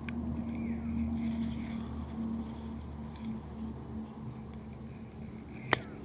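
Hands rustling among leaves and twigs while setting a bird snare, over a steady low hum. A short high chirp repeats about every two and a half seconds, and there is one sharp click near the end.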